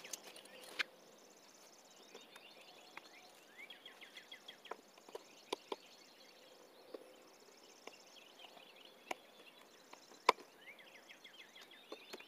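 Scattered sharp clicks and snaps from hands working at the RV's cab-over corner trim and seam, the loudest about ten seconds in. Birds chirp faintly in the background in short, repeated falling notes.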